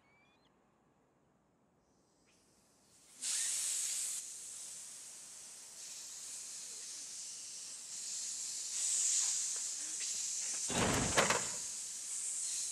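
A large crowd hissing in disapproval. It starts suddenly about three seconds in and goes on, swelling and easing, with a short louder burst about eleven seconds in.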